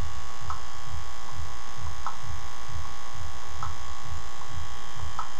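Steady electrical buzz with a low throb pulsing two to three times a second and faint ticks about every one and a half seconds.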